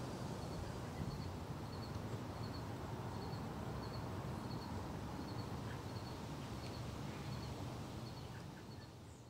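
Outdoor background noise, a steady low rumble, with a faint high chirp repeating evenly about twice a second. It all fades out near the end.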